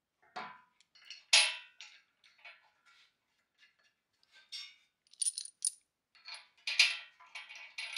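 Bolts and washers clinking against a powder-coated steel bumper bracket as the mounting hardware is fitted by hand: irregular metallic clicks and clinks, a few with a brief ring, the sharpest about a second and a half in and again near the end.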